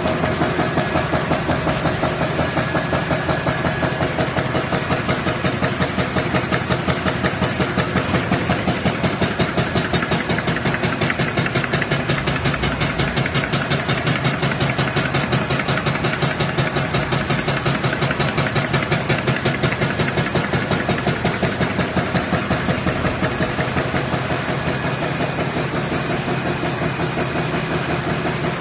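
High-speed label die-cutting machine running at speed, a rapid, even clatter of cutting strokes several times a second over a steady mechanical hum.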